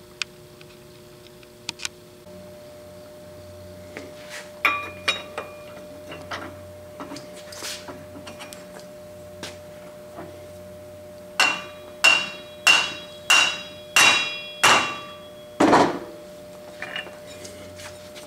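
A lead hammer taps an electric motor's end bell down onto the rotor shaft so its new ball bearing seats. It starts with a few light taps, then comes a run of about seven firm blows a little over half a second apart, each with a short metallic ring.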